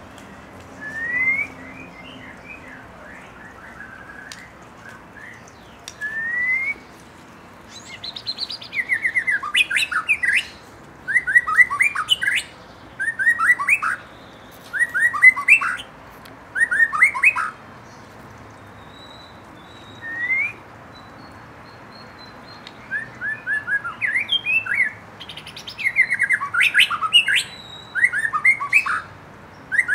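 White-rumped shama singing: a few single rising whistles, then from about eight seconds in a run of loud phrases of rapid sweeping notes, each about a second long, with short pauses between.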